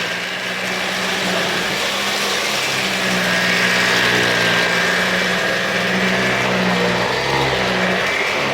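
Kärcher CV36/2 upright vacuum cleaner running with its brush roll on carpet. The steady motor whine bends slowly up and down in pitch as the cleaner is worked over the carpet.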